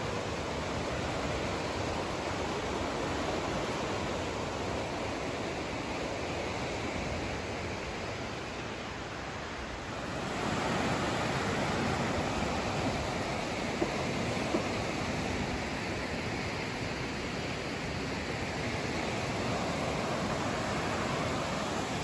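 Steady rush of fast white-water river rapids, growing louder about halfway through. Two brief clicks about two-thirds of the way in.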